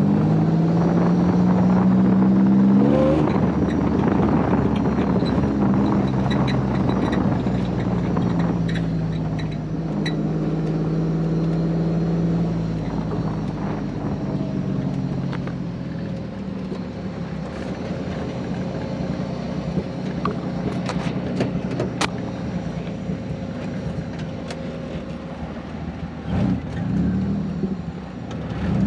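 Supercharged GM 3800 V6 of a Fiero race car running on the street, heard from inside the cockpit with wind rushing through the missing windshield. The revs climb quickly about three seconds in, hold steady for a while, then drop to lower, quieter running about halfway through, with a few sharp clicks soon after.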